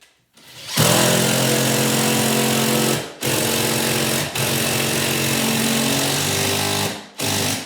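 Impact driver running in long hammering bursts to drive fasteners tight, with two brief pauses partway through, then stopping and giving one short final burst near the end.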